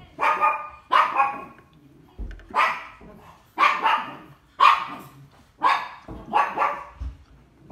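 A dog barking repeatedly: about a dozen short barks, often in pairs, roughly once or twice a second.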